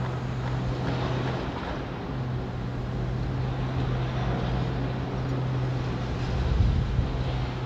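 Engine of demolition machinery running steadily with a low hum, over a wash of site noise; the rumble swells briefly near the end.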